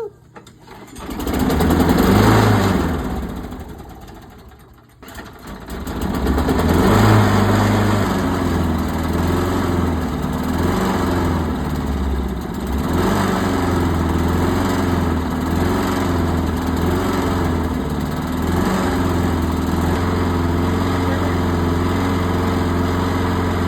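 Small lawnmower engine starting. It runs up for a few seconds and dies away, then catches again about five seconds in and settles into a steady run.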